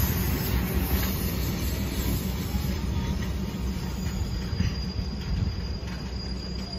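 Diesel railcar train moving away along the track, its low engine and wheel rumble growing steadily fainter, with scattered wheel clacks. A faint high steady whine joins about four seconds in.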